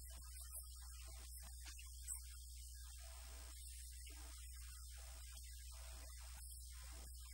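Steady low electrical mains hum with a faint high-pitched whine above it, and only faint scattered sounds over the top.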